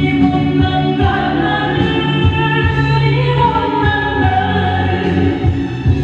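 A woman singing a Korean gospel praise song through a microphone over musical accompaniment, holding long notes.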